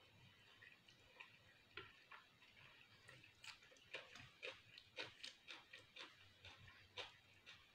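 Faint, irregular clicks and ticks of fingers picking through fusilli pasta on a plate. They are sparse at first and come several a second from about halfway in.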